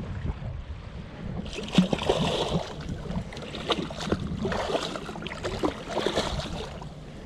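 Water splashing in irregular bursts beside a boat's hull as a hooked remora thrashes at the surface. The splashing starts about a second and a half in and runs in several bursts until near the end.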